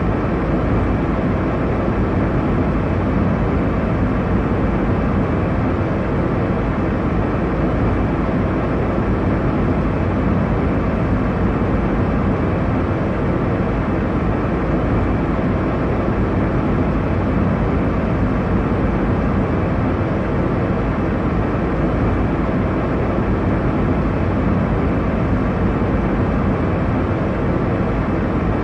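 Airliner cabin noise in flight: a steady, deep rush of engine and airflow noise, unchanging throughout.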